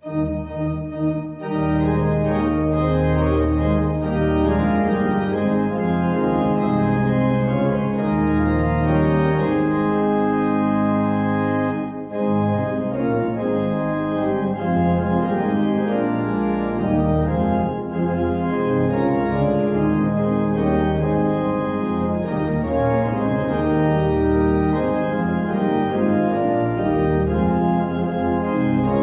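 Church organ playing slow, sustained chords over deep bass notes. It comes in suddenly, with brief breaks between phrases.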